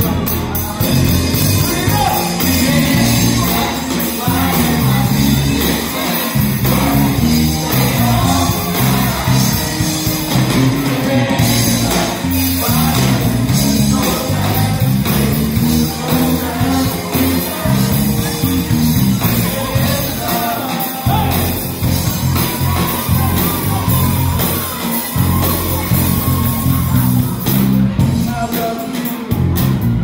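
Live band playing a 1990s R&B medley: electric guitars, saxophones and keyboard with a steady beat under lead singers on microphones, with some shouting.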